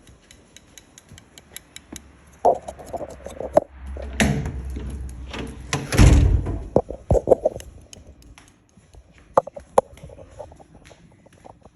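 Scattered clicks and knocks of objects being handled, with a heavy thud about six seconds in.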